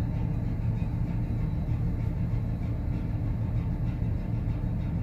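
Steady low rumble aboard a bulk carrier under way through thin sea ice, even throughout with no single event standing out.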